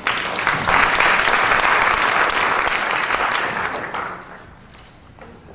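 Audience applauding, starting suddenly and dying away after about four seconds.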